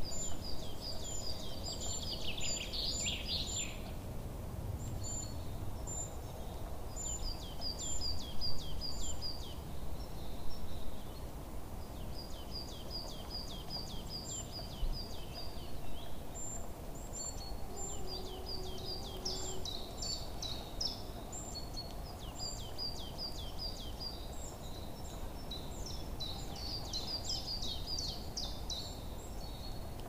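House sparrows chirping in bouts of quick, high, repeated chirps, several to a second, with short gaps between bouts, over a steady low background rumble.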